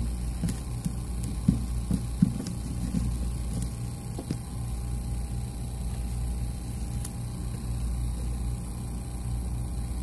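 Steady low hum of a hot-air rework station left running, with a few light knocks and rustles from handling in the first three seconds.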